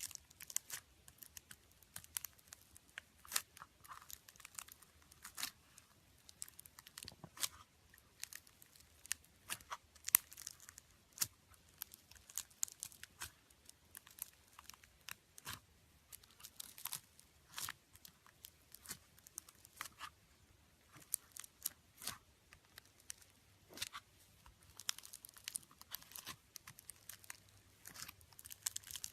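Slime being squeezed and stretched by hand, giving a run of irregular crackles and pops.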